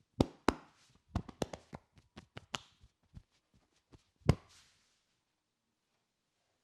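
A masseur's hands striking in percussive massage strokes: two loud slaps, a quick run of lighter taps, then one more loud slap about four seconds in.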